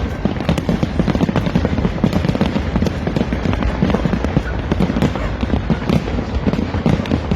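A fireworks display going off continuously: a dense, rapid crackle of pops over a low rumble of booms.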